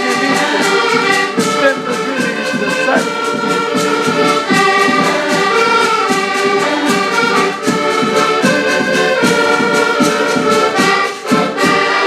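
Live music from a band playing a tune with a quick, steady beat.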